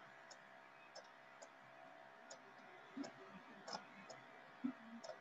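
Faint, irregular clicks of a stylus tapping on a tablet screen while handwriting, against near silence.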